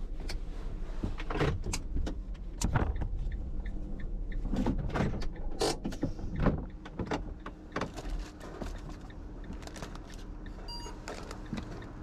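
Cargo van running, a steady low engine hum under many knocks, clunks and rattles, with a short beep near the end.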